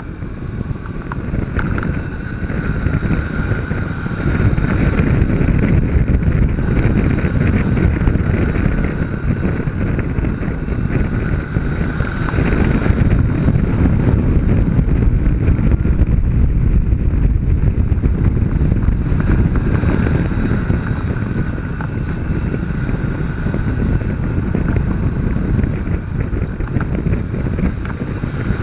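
Heavy wind noise on the microphone over a Honda CB500's parallel-twin engine running at speed on track; it gets louder about four seconds in.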